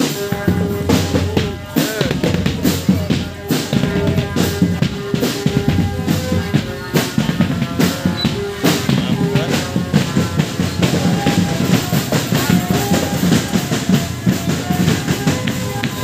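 Marching drum band playing: bass and snare drums beating a busy rhythm, with a melody of held notes over the drums.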